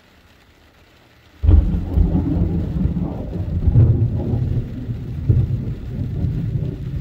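A thunderclap breaks in suddenly about a second and a half in and rolls on as a loud, low rumble that swells and fades, over faint rain.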